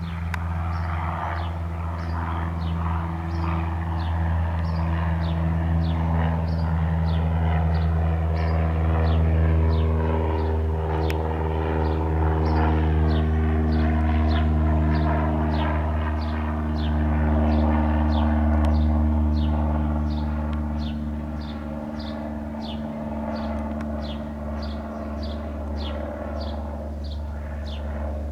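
Cessna 172N Skyhawk's four-cylinder Lycoming piston engine and propeller droning steadily. The drone swells in the middle and eases off after about twenty seconds, while its pitch drifts slowly lower.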